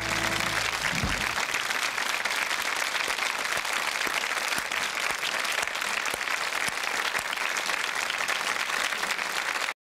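Studio audience applauding steadily, with the song's last low notes dying away in the first second or so. The applause cuts off abruptly near the end.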